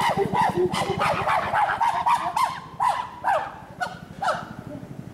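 Chimpanzees calling: a fast run of hooting calls, several a second, that thins out after a couple of seconds into a few separate calls sweeping upward in pitch.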